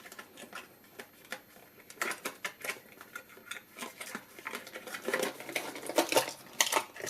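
Small plastic clamps being handled: a run of light plastic clicks and knocks, busiest about two seconds in and again from about five seconds.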